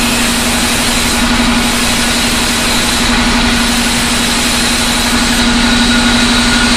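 Large sawmill band saw running steadily with a constant hum while a jackfruit log is fed through the blade.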